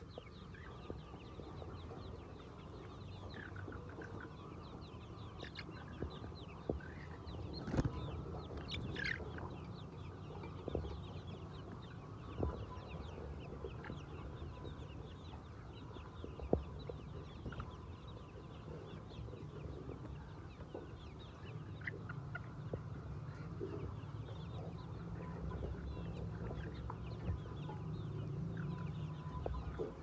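A large flock of white chickens clucking, many short high calls overlapping continuously, a few of them louder, over a steady low hum.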